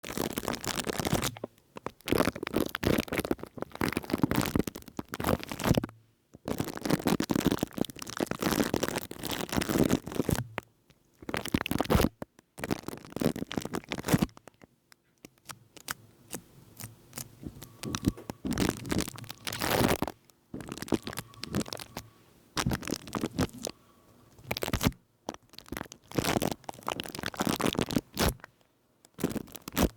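Foam being rubbed and squished directly on a Blue Yeti microphone, making close, crackly scratching and crunching in bursts of a second to a few seconds with short pauses between.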